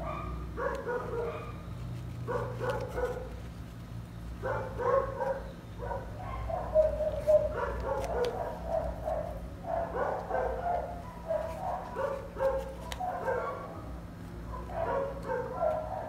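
A dog barking repeatedly in short bursts, about one every second, over a low steady hum.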